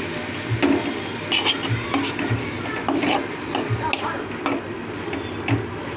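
A metal spatula stirring food in a cooking pan, clinking and scraping against the metal with repeated strokes about twice a second.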